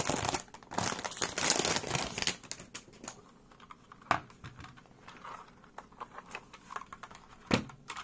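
Plastic wrapper crinkling for the first couple of seconds, then scattered key presses on a 60% mechanical keyboard with Gateron brown switches, with two louder knocks about four seconds in and near the end.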